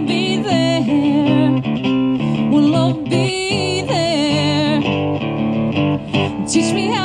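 Live acoustic duo: a woman singing with vibrato over acoustic guitar.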